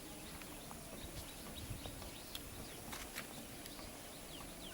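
Small birds chirping faintly in short falling chirps, with a few scattered sharp clicks or taps and a steady high hiss behind.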